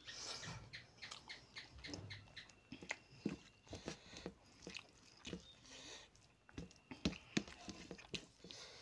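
Close-up eating sounds: wet chewing and lip-smacking, with many short clicks. Fingers squelch through rice and fish curry on a steel plate.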